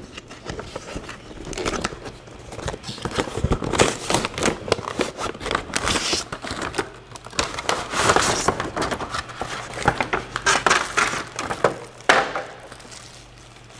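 Cardboard box and packaging being opened and handled: irregular rustling, crinkling and scraping as the box flap is lifted and the insert is pulled out. It dies down near the end.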